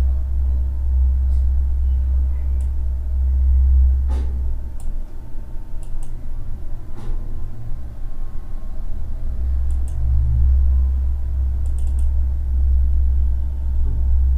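Computer mouse clicks, a few scattered short clicks, over a loud low hum that drops away for a few seconds in the middle.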